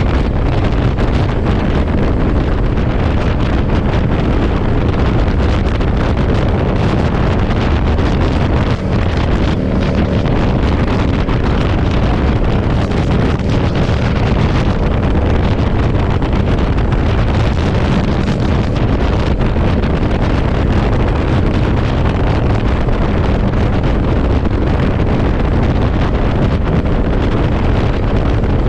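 Steady, heavy wind rumble buffeting the microphone on a moving motorcycle, with the Yamaha V-Star cruiser's V-twin engine running underneath at a steady speed.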